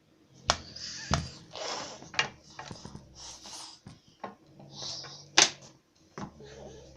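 A cat making a racket around a room: about six sharp knocks and bangs, the loudest just past halfway, with short rustling bursts between them.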